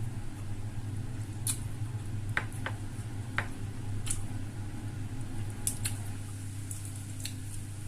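Close-up eating sounds: chewing with scattered short clicks and smacks, over a steady low hum.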